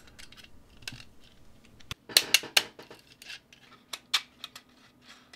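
Hard plastic clicks and knocks as 3D-printed PLA parts are handled and plastic ball bearings are pressed onto shafts and into a bearing housing. The clicks come scattered, loudest in a quick cluster a little after two seconds in.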